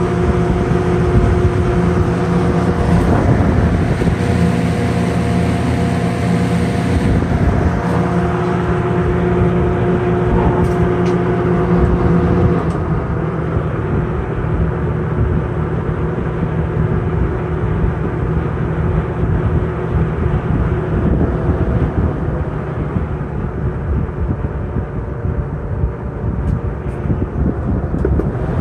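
Sears 20-inch three-speed box fan (Lasko-built) running: a steady motor hum under the rush of air from the blades. The airy hiss drops about seven seconds in, and the hum changes again about thirteen seconds in.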